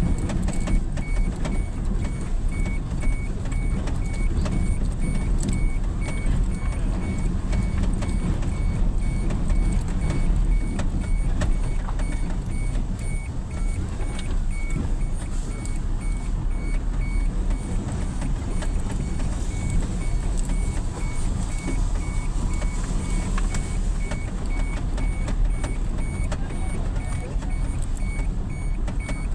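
A motor vehicle driving, its engine and tyres making a steady low rumble.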